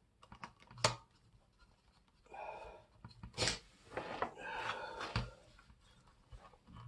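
Plastic parts of an electric shower's solenoid inlet valve being wiggled loose by hand: short scraping and rubbing with three sharp clicks.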